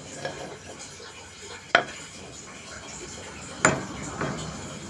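Hard objects being handled: two sharp clinks about two seconds apart, with softer tapping and rubbing around them.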